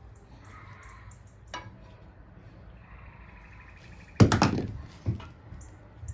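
A sharp clunk about four seconds in, rattling briefly, then a lighter knock a second later: a hard part or tool knocked against a hard surface while the carburetor is being taken apart.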